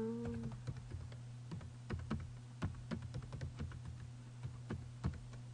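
Typing on a computer keyboard: a run of irregular key clicks as a web address is entered.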